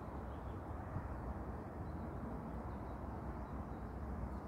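Wind rumbling on the microphone, with a few faint bird chirps.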